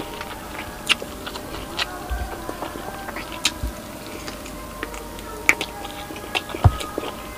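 A person chewing food close to the microphone, eating by hand, with scattered wet mouth clicks and smacks at irregular intervals.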